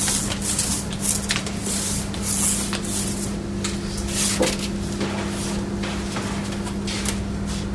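Veneers for a 7-ply skateboard deck being glued, heard as a string of short hissing, rubbing strokes over a steady machine hum. A second steady tone joins the hum about three seconds in.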